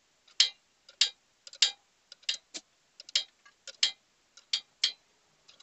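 A wrench tightening the 14 mm nut on a motorcycle's rear wheel: a run of sharp metallic clicks, roughly one every half second to two thirds of a second.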